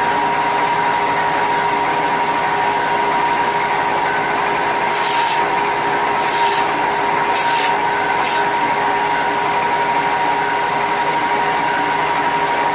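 Electric power tool motor running steadily with a constant whine, with four brief hissing bursts between about five and eight and a half seconds in.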